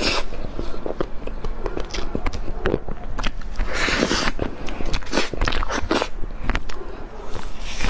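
Close-miked eating of chocolate cake: biting and chewing with many sharp wet mouth clicks and smacks. A few louder rustling bursts come around four seconds in, near six seconds and near the end, fitting the foil wrapper being handled.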